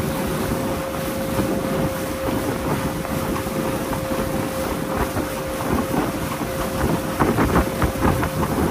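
A small motorboat's engine running steadily under way, with a steady whine over a rush of wind on the microphone.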